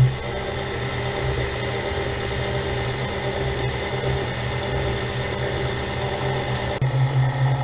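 Electric stand mixer running steadily, its flat beater beating a thick butter cake batter in a stainless steel bowl: a steady motor hum with a whirring haze. Near the end its sound changes, with some higher tones dropping out.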